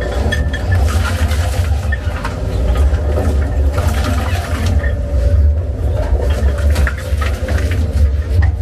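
XD1300 double-shaft shredder running under load, its counter-rotating cutter shafts tearing through shoes. Irregular crunching and cracking rides over a steady low drone from the drive.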